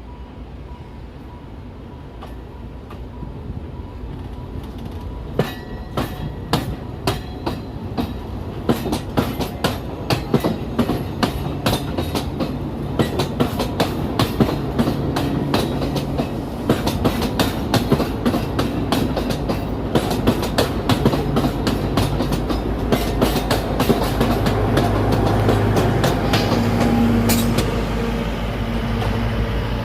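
Alishan Forest Railway train running on its narrow-gauge track, with a steady rumble and wheels clicking over the rail joints. The sound grows louder, and the clicks come thicker as it goes on.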